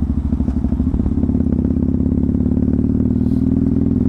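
Yamaha MT-03 motorcycle engine running at a steady cruise while being ridden, with a fast, even pulsing beat.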